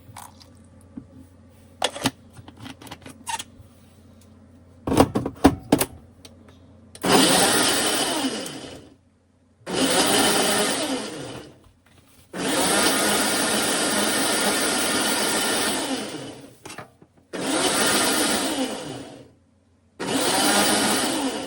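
Electric blender run in five short bursts, the longest in the middle, pureeing onion, herbs, peppers, garlic and water into Jamaican green seasoning. Before the first burst there are a few clicks and knocks.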